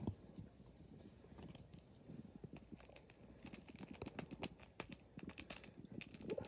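Faint, scattered clicks and rustles of hands handling packaging, getting busier about three and a half seconds in as scissors snip at the plastic shrink-wrap around a cardboard box of gum.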